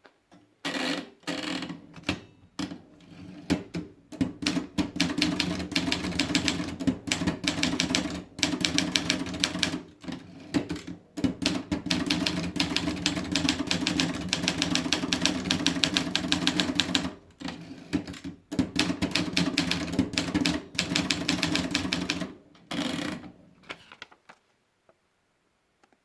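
Erika Model 30 manual typewriter being typed on: rapid runs of key strikes in bursts with short pauses, stopping about two seconds before the end.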